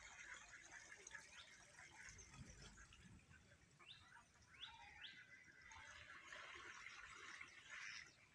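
Faint outdoor ambience with a few short rising bird chirps, three of them close together about four to five seconds in.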